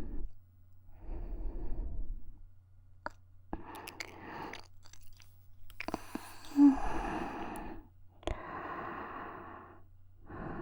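A woman's slow, soft breaths close to a binaural dummy-head microphone, about five in a row, each a second or two long with short pauses between. There are a few faint mouth clicks and a low steady hum underneath.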